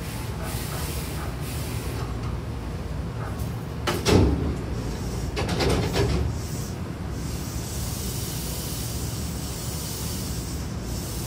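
Hankyu train car's sliding double doors opening at a station stop: a loud clunk and rush about four seconds in, then a second burst of noise around six seconds as the doors slide open and stop. Under it runs the steady low hum of the standing train.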